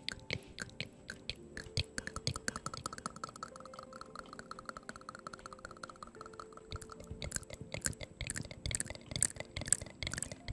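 Wet ASMR mouth sounds close to a microphone cupped in one hand: rapid lip and tongue clicks and smacks, several a second. They grow louder and denser after about seven seconds.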